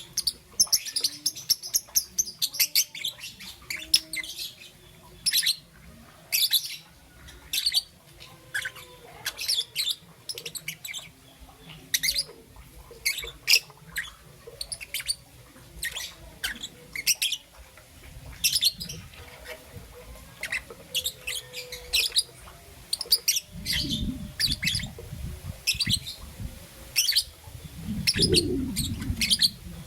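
A young peach-faced lovebird chirping over and over in short, sharp, high-pitched calls, several a second at times. A low rumbling noise comes in briefly three times in the second half.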